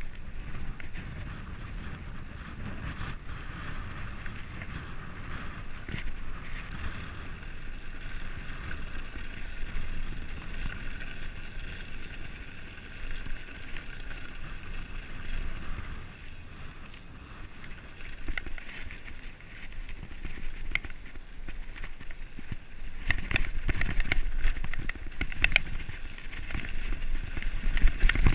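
Mountain bike rolling on a dirt singletrack, tyres crunching over the ground with a steady rolling noise. In the last few seconds it gets louder, the bike rattling and clattering over rough, rocky trail.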